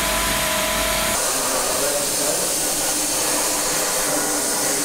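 A CNC milling machine runs with a steady whine for about the first second. The sound then switches to the steady hiss of an abrasive blast cabinet's air gun spraying grit onto a metal panel.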